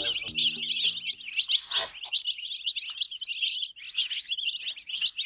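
A group of baby chicks peeping continuously, many high peeps overlapping. A few notes of background music sound in the first second or so.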